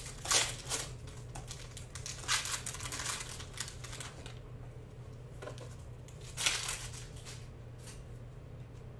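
Foil wrapper of a Panini Prizm basketball card pack being torn open and crinkled in the hands as the cards are slid out. There are several bursts of crinkling: at the start, again about two to three seconds in, and once more about six and a half seconds in.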